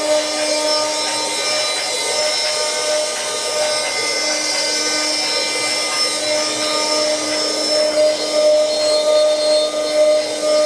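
Wood CNC lathe-engraving machine at work: a steady, unchanging spindle motor whine over the hiss of a cutter working wood.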